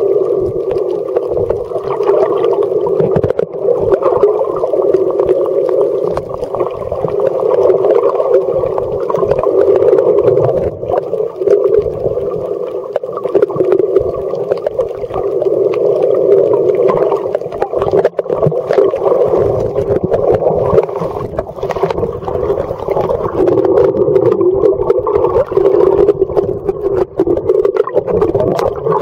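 Muffled underwater rush and sloshing picked up by a camera's microphone while submerged and moving through the water, with scattered small knocks from the camera being handled.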